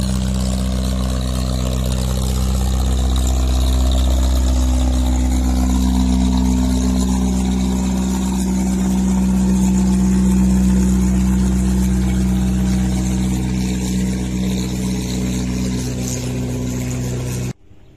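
A boat's engine running steadily at one speed: a loud, deep, even drone with a rushing noise above it, cutting off abruptly near the end.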